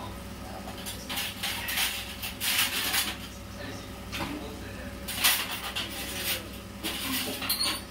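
Light kitchen handling sounds: several short rustling, scraping bursts with faint clatter, over a steady electrical hum.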